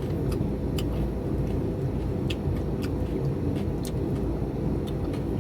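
Chewing with scattered wet mouth clicks over a steady low rumble.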